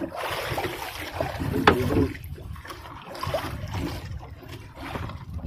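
Wet fishing net being hauled by hand into a small boat, water trickling and splashing off the mesh, with a sharp knock about a second and a half in.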